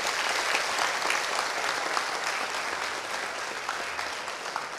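Audience applauding, a dense patter of many hands clapping that is fullest early and slowly dies down toward the end.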